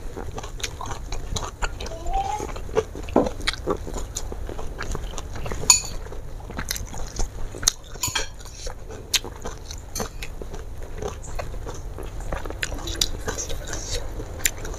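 A person chewing close to the microphone, with frequent irregular wet mouth clicks and smacks, while fingers pick at fried fish on a banana leaf.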